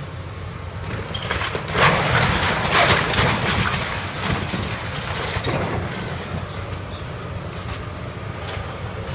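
CAT excavator's diesel engine running steadily while its bucket tears into the Quonset hut's corrugated metal shell, with crunching and crashing of sheet metal and debris, loudest about two to three seconds in and again around five seconds.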